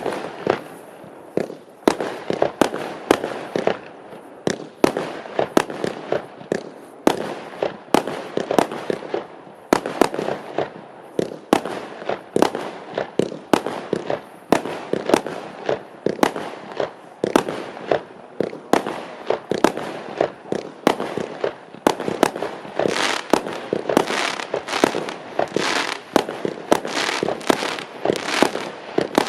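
A 256-shot fireworks cake firing in a rapid, steady run: sharp launch thumps and bursts several times a second, with crackle in between.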